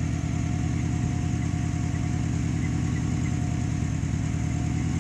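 Dodge pickup truck's engine idling steadily with a fast, even low pulse. The exhaust leaks at the catalytic converter.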